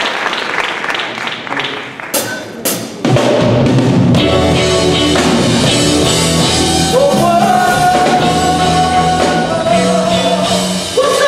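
An audience clapping in rhythm, then two sharp drum hits about two seconds in. A live band with drum kit, bass, electric guitars and keyboards starts playing about three seconds in and plays steadily through.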